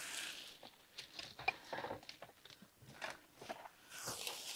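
Chopped peppers and onions frying in a skillet: a faint sizzle with small irregular crackles and clicks.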